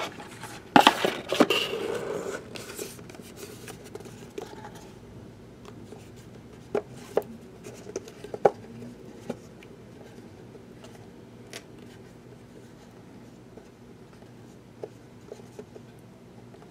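A short clatter of plastic card holders being handled on a tabletop about a second in, then scattered small clicks and taps over a steady low room hum.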